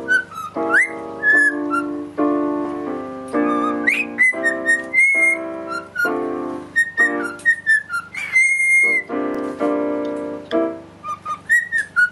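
A cockatiel whistling a tune in short sliding notes, with quick upward swoops and one longer held note, over a piano being played in steady chords.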